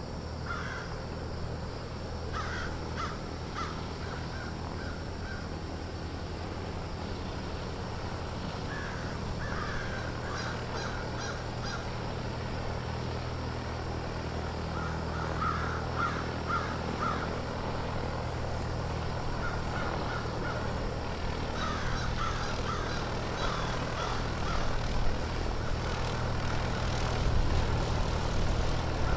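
Crows cawing in repeated short series, over a steady low hum.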